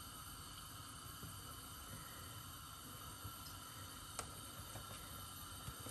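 Quiet steady background hiss of room tone, with a few faint ticks in the second half.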